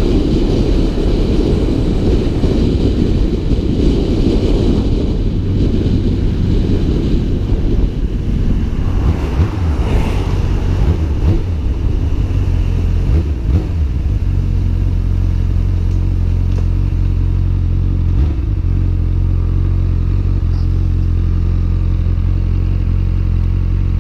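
Honda Hornet CB600F inline-four motorcycle engine heard from a helmet-mounted camera, with wind and road noise while riding. About halfway through the bike slows and the engine settles into a steady idle.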